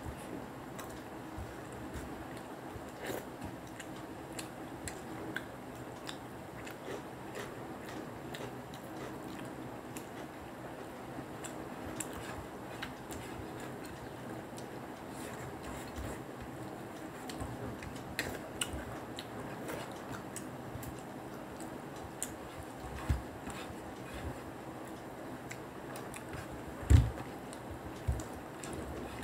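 People eating by hand at a table: small clicks and scrapes of fingers and food on plates, with chewing, over a steady low room hum. A few dull knocks near the end, one clearly louder, as something is set down or bumped on the table.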